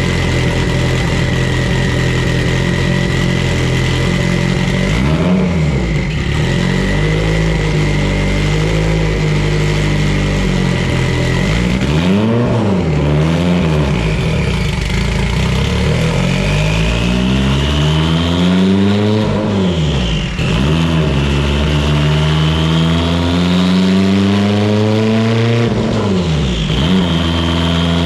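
Mitsubishi Evo 8's built 2.0-litre turbocharged four-cylinder with a Garrett GTX3584RS turbo running on a dyno. It holds a steady speed for about five seconds, revs up and back twice, then climbs in revs with a rising turbo whistle, falling sharply twice, once about two-thirds through and again near the end.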